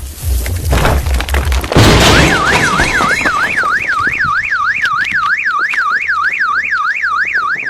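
A loud sudden hit about two seconds in, then a car alarm wailing, its pitch sweeping rapidly up and down about three or four times a second.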